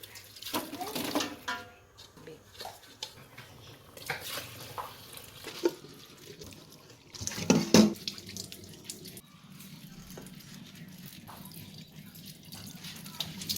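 Water running from a kitchen tap into a sink, with knocks and clatter of pots and utensils. The loudest clatter comes about seven and a half seconds in, then a steady running sound to the end.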